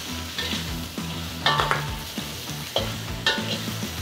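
Prawns and shallots sizzling in hot oil in a wok, with a metal wok ladle stirring and clanking sharply against the wok a few times.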